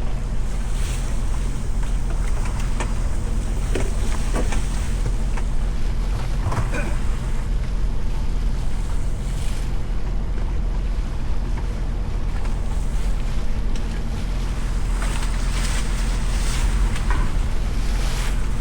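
Boat engine running steadily under wind and water noise, with a few brief knocks here and there.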